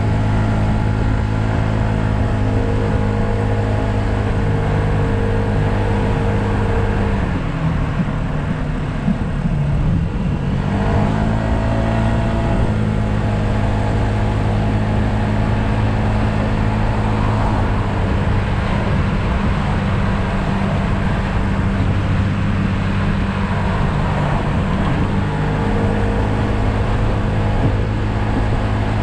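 Yamaha SMax scooter's 155 cc single-cylinder engine running at a steady cruise. About seven seconds in its pitch drops as the scooter slows, then climbs back up around ten to twelve seconds in as it speeds up again.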